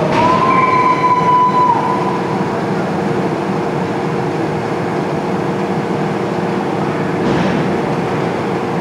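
Steady din of an ice rink during a youth hockey game, with a constant low machinery hum running under it. Near the start a single held tone sounds for about a second and a half.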